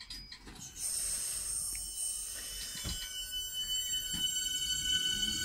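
Class 465 Networker electric multiple unit powering up to move off. A steady high electrical whine comes in about a second in. Near three seconds two clearer steady tones join it, and the pitch starts to rise towards the end as the train begins to roll.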